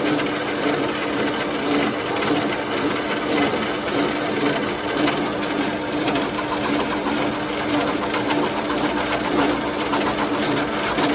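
Metal-turning lathe running steadily, its motor and spindle giving a constant hum.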